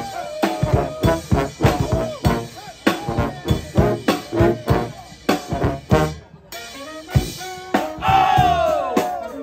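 A military brass band playing an upbeat Dixieland tune: trombones and other brass over snare and bass drums keeping a steady beat. About eight seconds in, the playing gives way to shouted voices that slide down in pitch.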